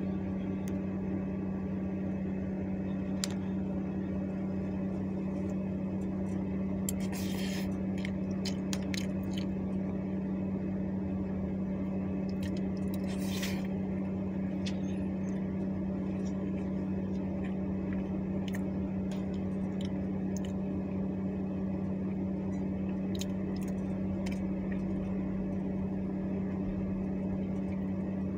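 A steady, even machine hum, with a few light clicks and two brief scraping noises, about seven and thirteen seconds in.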